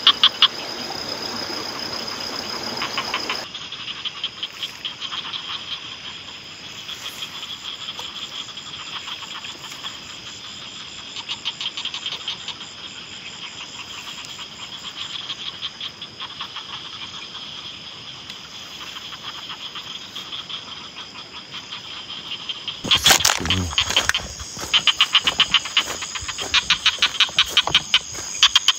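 Night chorus of insects and frogs: a steady high-pitched insect trill with fast pulsed calls over it. A brief thump about 23 seconds in, after which the pulsed calls are louder.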